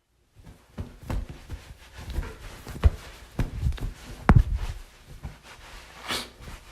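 Towel being rubbed and flapped in drying: a run of soft, irregular rubs and dull thumps, heaviest a little under three and a little over four seconds in, with a brief swish about six seconds in.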